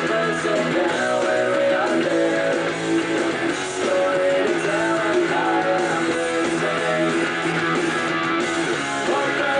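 Guitar-driven music track with strummed guitars and bass.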